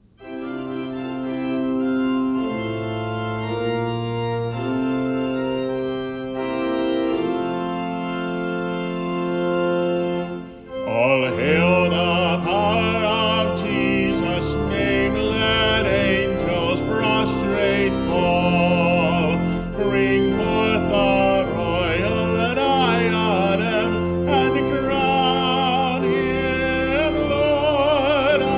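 Organ playing a hymn introduction in sustained chords for about ten seconds, then voices come in singing the hymn over the organ accompaniment.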